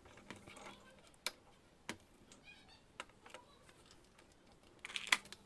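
Scattered sharp clicks and taps of small hard objects, a second or so apart, getting denser and louder near the end, with a brief faint high-pitched call about two and a half seconds in.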